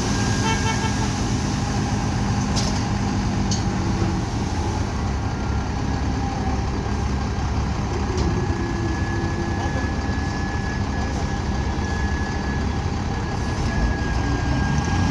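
Heavy diesel machinery running steadily with a low rumble, with two sharp clicks a second apart early on.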